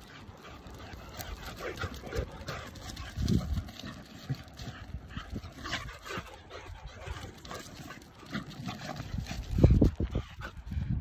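A boxer and a labrador-type dog play-fighting on a dry dirt path: irregular scuffing and patter of paws on the grit, with short dog vocal sounds. A louder low thump comes near the end.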